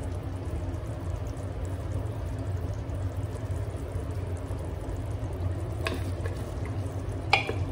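Mutton gravy simmering and sizzling steadily in an aluminium pressure cooker on a low gas flame. Near the end a wooden spatula stirs it, with two short knocks against the pot.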